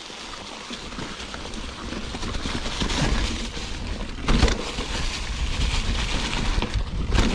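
Mountain bike descending a rough dirt trail: tyres rumbling over the ground and wind buffeting the microphone, growing louder over the first few seconds, with a sharp knock about four seconds in and another near the end.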